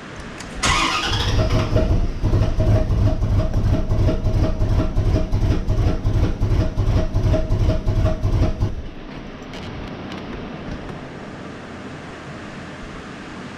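The 1994 Corvette's LT1 V8 is cranked by its starter for about eight seconds. It chugs about three times a second over a steady whine, then stops without catching: a crank-no-start, even with a new Optispark distributor fitted.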